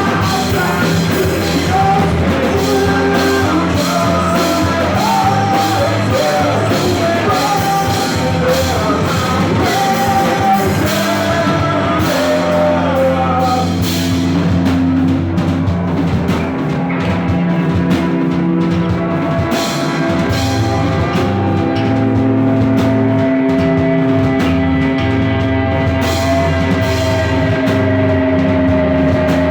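Rock band playing live: singing over electric guitar, bass and drum kit. About halfway through the vocal line drops out and long held guitar notes carry on over the drums.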